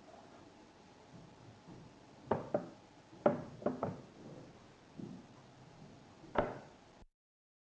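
Mechanical arithmometer calculator being operated: a run of about seven sharp clicks and knocks at uneven intervals as its mechanism is worked.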